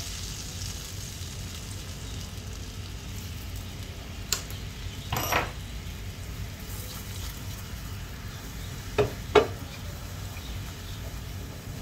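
Honey sauce sizzling and bubbling in a stainless steel frying pan while a wooden spoon stirs it. A few short knocks of the spoon against the pan come through, the two loudest close together near the end.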